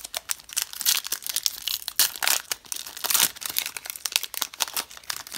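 Foil wrapper of a Panini Prizm football trading-card pack being torn open by hand: a quick run of crinkles and rips, loudest in the middle.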